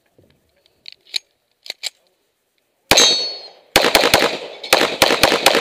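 Semi-automatic pistol firing in an IDPA course of fire: a single shot about three seconds in, then a fast string of shots in two quick clusters. A few faint clicks come first.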